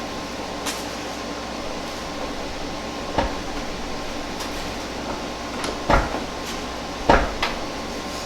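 Three solid knocks and clunks of work on a pickup truck's newly hung door, about 3, 6 and 7 seconds in, with a few lighter clicks between them, over a steady shop fan hum.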